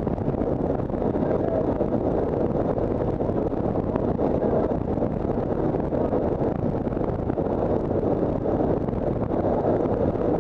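Steady, loud drone of a military transport aircraft's engines and rushing air, heard inside the cargo hold in flight.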